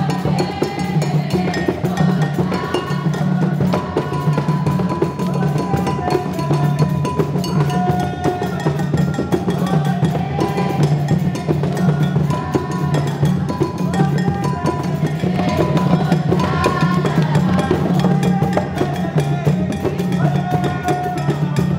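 Upbeat dance music with drums and other percussion keeping a steady beat, and a melody of held notes stepping over it.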